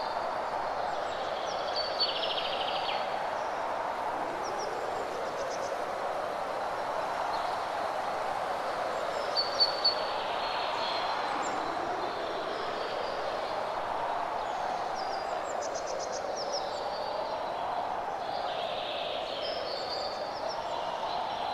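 Outdoor ambience of a steady rushing noise that slowly rises and falls in pitch, with small birds chirping and trilling now and then, including a couple of louder chirps about ten seconds in.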